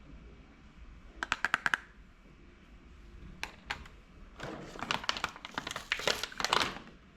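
Light clicking and rattling of small hard objects being handled: a quick run of about seven clicks just over a second in, then a longer stretch of scattered clicks and light rustling.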